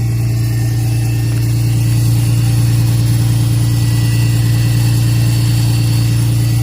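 Nissan Skyline R32 GT-R's RB26DETT twin-turbo straight-six idling after a cold start, with a loud, steady drone. It is making an unusual, very loud noise that the owner suspects comes from something frozen inside.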